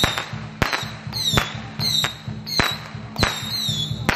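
Firecrackers going off: a string of sharp bangs, about one every two-thirds of a second, with high falling whistles between them, over a steady low drone.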